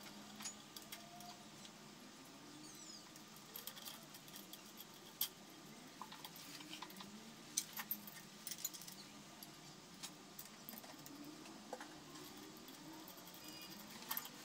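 Faint, scattered metallic clicks and taps of steel bolts, nuts and a pulley puller being handled and fitted onto a lathe's cast V-belt drive pulley.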